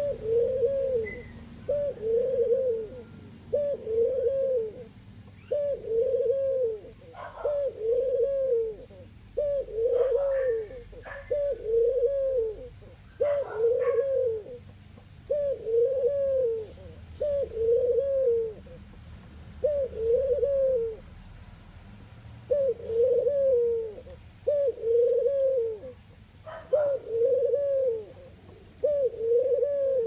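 Ringneck dove cooing: a long, steady series of short, low coos, each rising and falling, about one a second with a brief pause after the middle. A few short, higher chirps break in over some of the coos.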